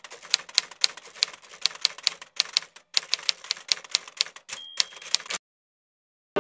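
A 1916 Oliver No. 9 typewriter being typed on, its down-striking typebars hitting the platen in a brisk run of sharp clacks, about three a second, with a couple of short breaks. A brief bell ring sounds a little after four and a half seconds.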